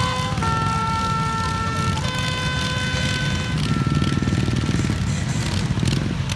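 Ride-on lawn tractor engines running steadily under load. Over them is a held pitched tone that changes pitch in steps every second or two.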